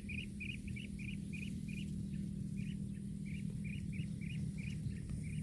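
A small animal chirping in a quick series of short, high notes, about three a second, with a brief pause partway through, over a steady low hum.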